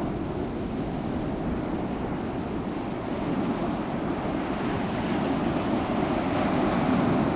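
Sea waves washing ashore, a continuous surf rush that swells gently and grows a little louder in the second half.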